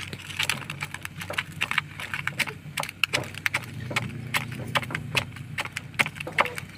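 Wooden spoon knocking and scraping against an aluminium bowl while a moist chopped vegetable mix is stirred, a quick irregular run of small clicks and knocks.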